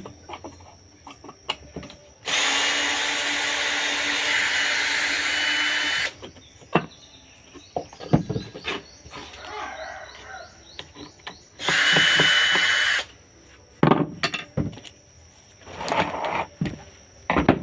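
A small handheld power tool motor runs steadily twice, first for about four seconds, then briefly for about a second. Scattered knocks and clicks of handling fall between and after the runs.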